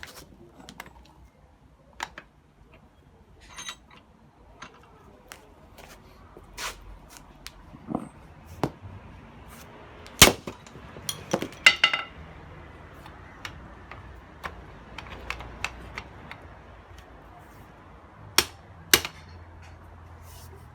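Sledgehammer blows on a steel bicycle D-lock held in a vice: sharp metallic strikes at irregular intervals with lighter knocks between them. The loudest blow lands about halfway through, a quick cluster follows with a brief ring, and two more strikes come near the end.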